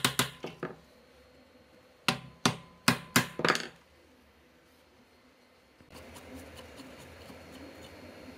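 Hammer driving a chisel against the rusted steel end cap of an old electric fan motor: a quick run of metallic knocks that dies away in the first second, then five harder single strikes between about two and three and a half seconds in. Near the end there is a faint steady scraping as a thin tool works at the seam of the rusted cap.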